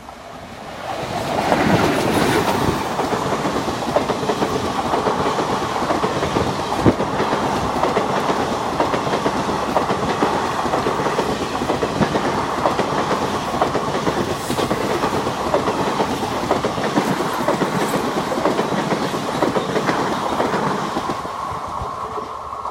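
Express train of coaches behind a WAP-4 electric locomotive running at top speed, its wheels clattering over the rail joints in a steady clickety-clack. The sound swells up suddenly a second or two in, holds loud, and eases off near the end.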